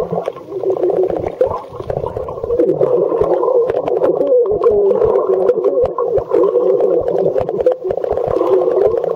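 Muffled underwater sound picked up by a submerged camera in seawater: a wavering hum with many small clicks and crackles of moving water and bubbles.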